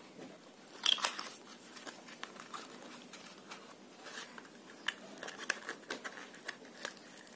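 Small box of braided fishing line being opened and handled: scattered crinkling and rustling of packaging with light clicks, louder about a second in.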